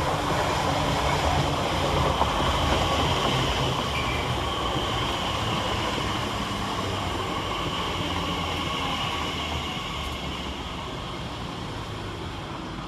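Class 345 electric multiple unit arriving and slowing into the platform: wheel-on-rail running noise with a faint electric motor whine, gradually dying down as the train comes to a stand.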